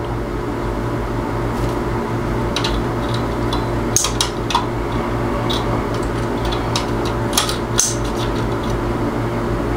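Steady low hum with a few small clicks and scrapes, about four seconds in and again around seven to eight seconds, as a fan capacitor's wire leads are held pushed into a power-strip outlet to charge it.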